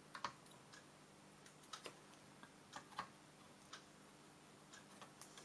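Near silence with faint, irregular small clicks and taps as a soldering iron and parts are worked on a computer circuit board.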